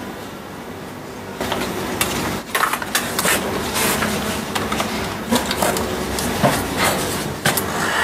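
Irregular clicks, knocks and clatter of tools and parts being handled, over a steady background noise that comes up about a second and a half in.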